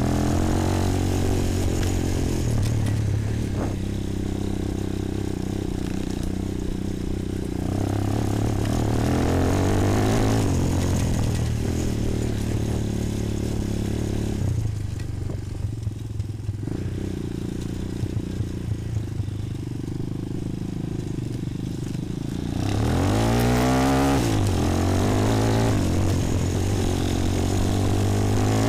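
Bashan 250 quad's single-cylinder engine running under load off-road, the revs rising and falling again and again as the throttle opens and closes. In a quieter stretch near the middle the throttle eases and short knocks and rattles come from the machine over rough ground. About two-thirds through, a quick rev-up and drop.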